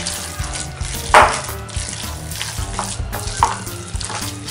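Hands kneading and squeezing a wet mixture of raw minced mutton, egg and cornstarch in a glass bowl: an uneven, crackling squish, loudest about a second in.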